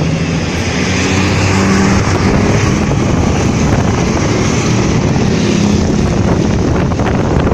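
Big Top intercity coach passing close by with its engine running and wind buffeting the microphone, with a few short low tones sounding now and then over the noise.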